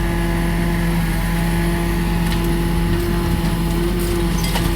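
A motor or engine running steadily at a constant pitch, giving an even hum.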